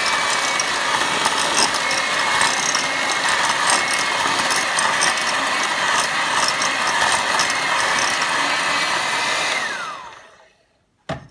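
Electric hand mixer running steadily with a constant whine, its beaters whipping cream as coffee is worked in. Near the end it is switched off, and its whine slides down in pitch as the motor winds down, followed by a single knock.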